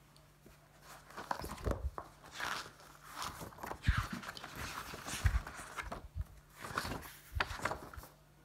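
Pages of a thick spiral-bound paper notebook being turned one after another, the paper rustling, with a few soft thumps as the pages settle.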